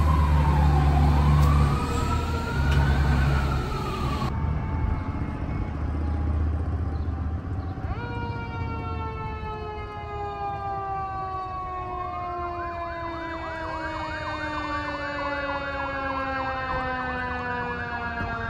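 A fire engine's siren wails up and down over the low rumble of its engine as it pulls away. After a cut, another fire truck's siren is heard from a distance, its pitch falling slowly and steadily as it winds down. About twelve seconds in, a fast electronic yelp siren joins it.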